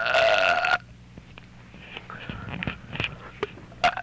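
A short burp with a clear, slightly rising pitch, lasting under a second at the start. It is followed by quiet small mouth clicks, with one sharp click near the end.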